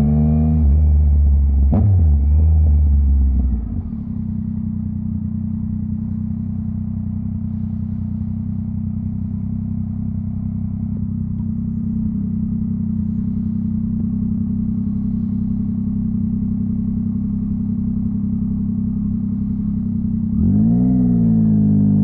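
Yamaha MT-09's inline three-cylinder engine running at higher revs with a single sharp crack about two seconds in, then settling to a steady idle for about sixteen seconds. Near the end the revs rise again as the bike pulls away.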